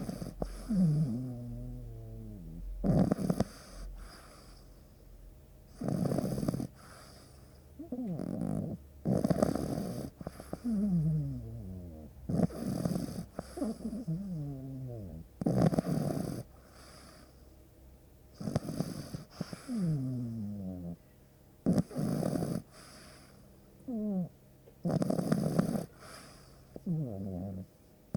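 Sleeping puppy snoring: a rough snoring breath about every three seconds, each followed by a breath that slides down in pitch.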